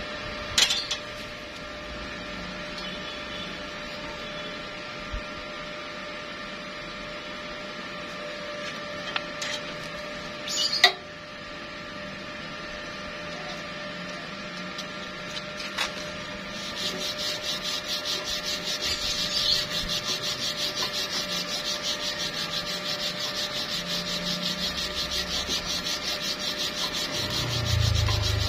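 Stick welding arc crackling and hissing, setting in about two-thirds of the way through with a quick, even pulsing. Before it there is a low steady hum broken by a few sharp clicks.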